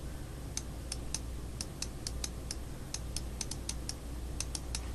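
Typing on a computer keyboard: a string of light, irregularly spaced key clicks, some in quick runs, over a low steady hum.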